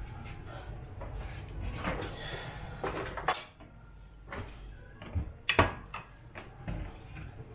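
Bottles and kitchen things being handled and set down on a countertop: a handful of separate knocks and clunks, the loudest about five and a half seconds in.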